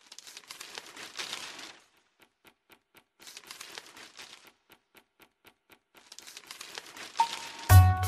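Crackling, crinkling noise, then a run of evenly spaced ticks about three to four a second; music with a strong bass starts near the end.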